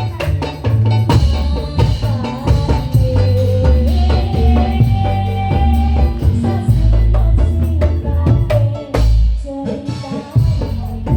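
Indonesian patrol music played live: a percussion ensemble of bamboo slit drums (kentongan) and drums playing a busy rhythm over deep stepping bass notes, with a held melody line on top.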